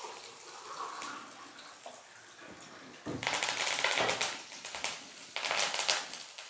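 Freshly washed curry leaves spluttering and crackling in hot ghee with cumin seeds and green chillies. The spitting comes in two sudden bursts of sharp crackles, one about three seconds in and a shorter one near the end, over a faint sizzle.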